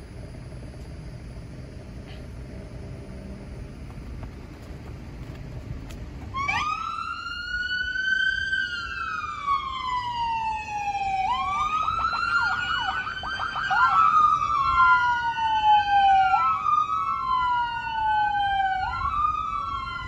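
Police car sirens start about six seconds in, wailing in slow rising-and-falling sweeps. A few seconds later more siren wails join, overlapping out of step with the first.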